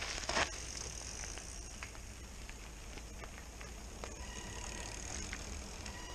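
Mountain bike rolling downhill on a dirt and gravel trail: a steady rumble of tyres and wind with small clicks and rattles, a brief loud rush near the start, and a steady whine from about four seconds in.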